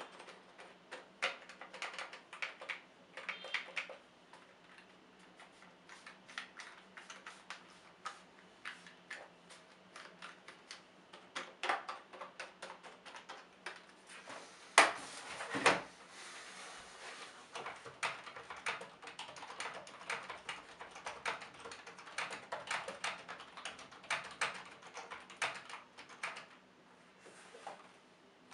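Keys of a Microsoft Natural Ergonomic Keyboard 4000 clicking under irregular presses, like typing, with its soft membrane key action. There is one louder knock about halfway through.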